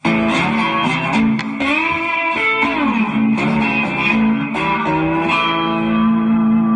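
Intro music: a guitar playing a phrase of notes with pitch bends, settling into a long held note about two-thirds of the way in.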